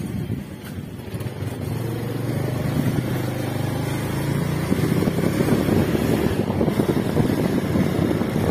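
Motorcycle engine running while riding, with wind rushing over the microphone that grows louder toward the end as the bike picks up speed.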